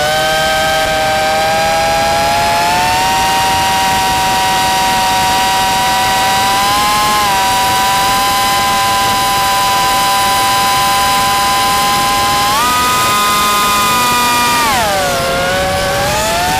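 FPV quadcopter's brushless motors and propellers whining as heard from the camera on board, their pitch moving with throttle: stepping up a few seconds in, jumping higher about 12 seconds in, then dropping sharply a couple of seconds later.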